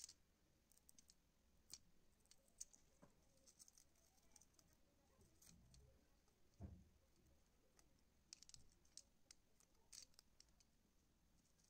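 Faint, scattered clicks and scrapes of a small knife blade cutting and peeling a cable's copper shield and insulation, with one soft knock about two-thirds of the way in.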